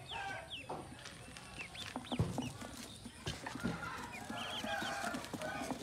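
A brood of ducklings peeping: many short, high chirps that bend up and down in pitch, with a quick run of peeps just after four seconds in. A single sharp knock a little past two seconds in is the loudest sound.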